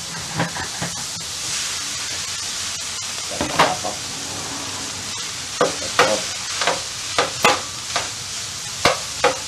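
Pre-cooked rice sizzling on a hot flat-top griddle, the hiss swelling about a second and a half in as the rice goes onto the steel. Metal spatula and scraper then clank and scrape on the griddle plate in a run of sharp strikes as the rice is broken up and spread to heat through.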